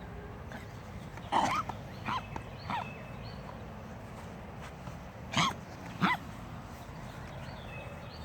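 Short, harsh coughs in two bouts: three in quick succession about a second in, then two louder ones around five and six seconds in.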